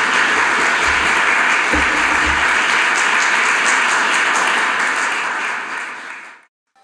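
Audience applauding, a dense steady clatter of many hands that fades out about six seconds in.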